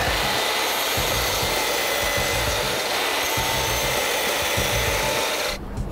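Dnipro-M sliding mitre saw running at full speed and cutting through a wooden workpiece: a steady motor whine under a dense rush of cutting noise, which drops off sharply near the end.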